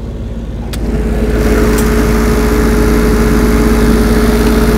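A Lincoln Electric Dual Maverick 450 welder's Perkins 403D-11 three-cylinder diesel engine running at a steady speed. A click comes just under a second in, and the engine grows louder as the service door is opened, letting out the noise the closed case holds in.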